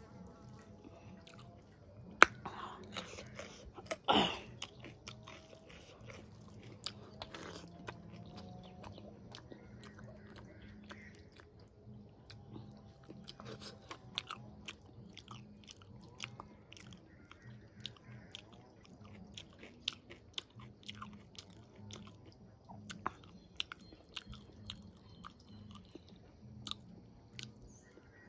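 Close-miked chewing and biting of a rice-and-vegetable meal eaten by hand, with many small wet mouth clicks and scattered crunches. Two louder sharp sounds come about two and four seconds in.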